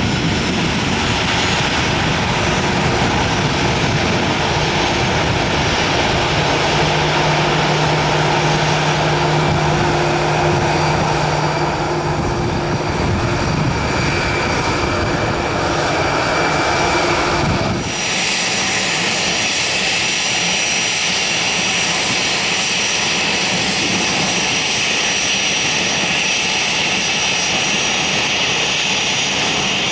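Airbus A321 jet engines running at taxi power as the airliner rolls by: a steady rushing noise with a few held whining tones. About 18 seconds in the sound cuts abruptly to another taxiing A321, with a higher, brighter whine and less low rumble.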